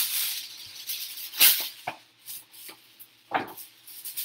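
Aluminum foil being pulled off the roll and torn from its box, crinkling, with several sharp rips; the loudest is about one and a half seconds in.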